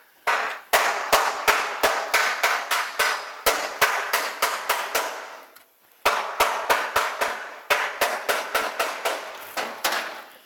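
A rapid series of sharp knocks, about four or five a second, in two runs of about five seconds each with a brief pause between them.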